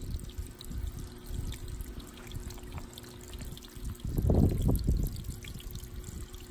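Water trickling steadily into a garden pond, with a faint steady hum underneath. About four seconds in, a louder low rumble lasts for about a second.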